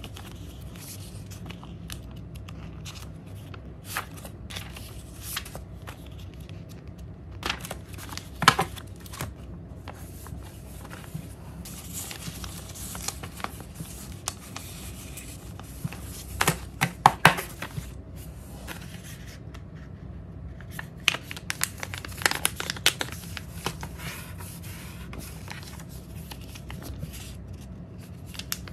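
Sheets of origami paper being handled: intermittent crisp rustling, crinkling and sharp flicks as the sheets are shuffled and fanned through, with a few louder clusters, then the softer sound of a square being folded near the end.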